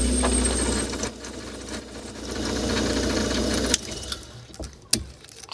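Wood lathe running while an aluminium round-bar segment is drilled out to 8 mm. The machine hum is steady at first, dips about a second in, swells again, drops off just before four seconds, and a few sharp clicks follow near the end.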